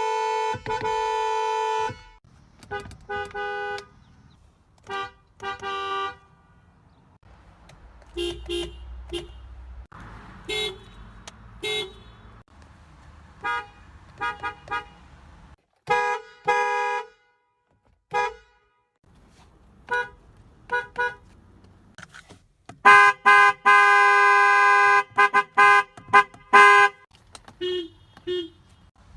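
Car horns honking: a sustained blast that stops about two seconds in, then many short toots in quick runs, and a series of long, loud honks from about twenty-three to twenty-seven seconds in. Low road noise fills the gaps between them.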